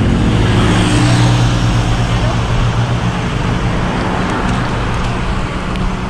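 A motor vehicle's engine running close by on the road as traffic passes, a steady low hum over road noise that slowly fades.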